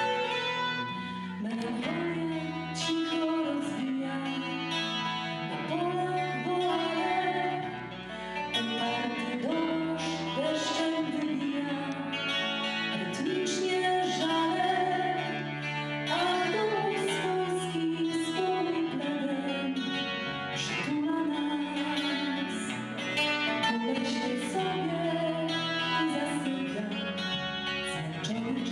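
Live music: a flute playing a melody over instrumental accompaniment, then a woman singing into a microphone.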